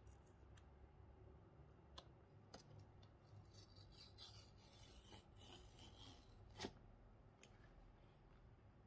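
Faint rustle of a paper pull-tab tear strip being drawn along a cardboard phone box to break its seal, with a few small clicks and one sharper snap about two-thirds of the way through.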